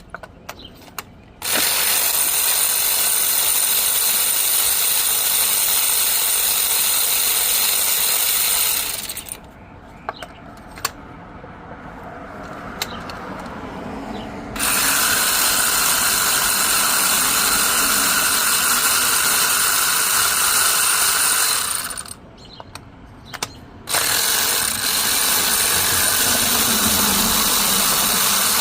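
Ratchet wrench clicking in long runs, with a few short pauses, while working bolts during engine repair.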